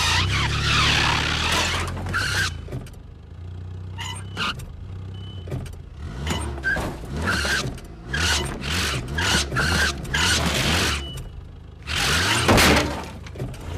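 Car engine revving in repeated surges with tyre squeals as a car tows a boat trailer back and forth, with a few short knocks along the way.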